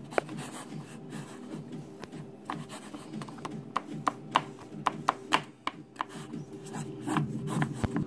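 A fork stirring cake batter in a disposable cup, its tines clicking and scraping against the cup's sides and bottom in quick, irregular strokes. The sharpest ticks come in the middle of the stirring.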